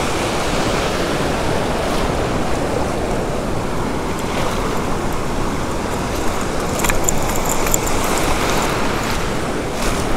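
Shallow surf washing over the sand, a steady rush of foam and breaking waves. A few short clicks and rattles come about seven seconds in.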